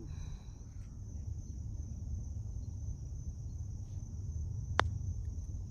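A single sharp click about five seconds in: a putter striking a golf ball. Behind it runs the steady, high-pitched buzz of insects.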